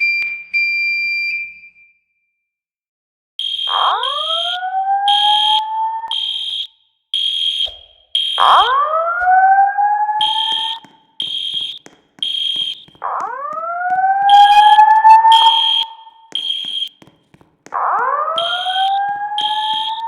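School fire alarm system sounding a whoop tone that rises in pitch four times, about every four and a half seconds, over fast, high-pitched pulsed beeping. A steady high tone sounds for about a second and a half at the start, followed by a pause of about two seconds before the whoops begin.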